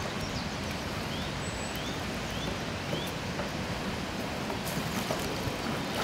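Steady outdoor rushing noise with low buffeting, like wind on the microphone. A bird gives four short, rising chirps over about two seconds, starting about a second in.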